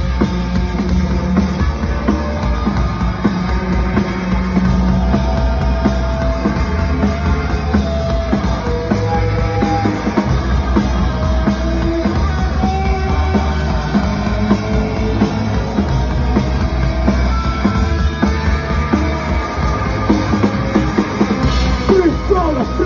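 Live rock band playing loud: a drum kit pounding steadily under distorted guitars, with a few held guitar notes standing out in the middle and sliding notes near the end.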